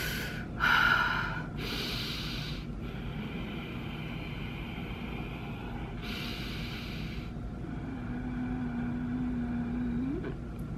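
A woman breathing deeply in and out several times through her mouth and nose, calming herself against the burn of very spicy food, the strongest breath about a second in. Near the end she hums one steady closed-mouth note for a couple of seconds that rises just as it stops.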